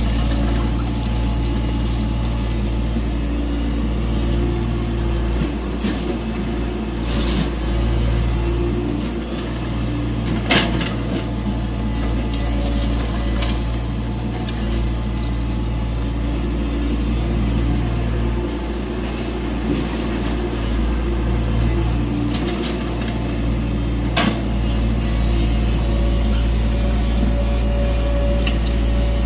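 Tata Hitachi EX70 excavator's diesel engine running steadily, its note shifting now and then as the machine works, with two sharp knocks in between.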